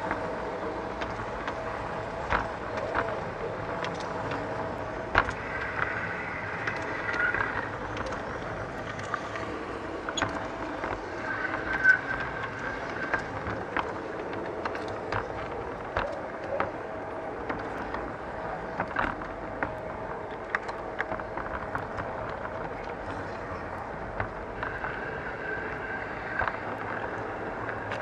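LGB garden-railway model train running along its track, heard from on board: a steady electric motor whine with irregular clicks of the wheels over the track, and a few brief high squeals.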